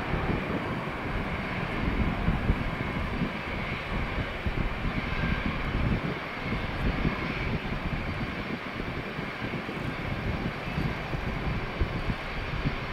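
Boeing 747-400's four turbofan engines running at low taxi thrust: a steady jet whine over an uneven low rumble as the jumbo jet rolls past.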